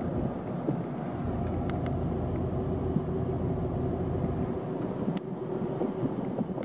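Steady in-cabin rumble of a Changan CS75 SUV on the move: road and tyre noise with its 1.8-litre petrol engine running, and a few faint clicks.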